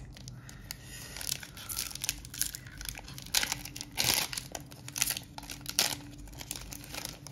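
Foil wrapper of a Magic: The Gathering booster pack crinkling and tearing as it is handled and opened, a run of irregular crackles with a few sharper rips, the loudest about four seconds in.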